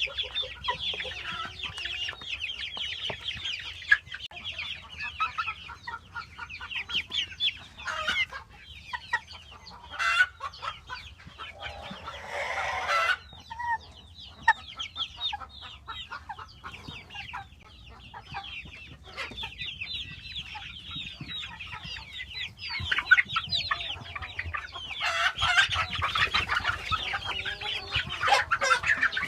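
A flock of chickens clucking and chattering continuously, with many overlapping short calls and a louder, longer call about twelve seconds in.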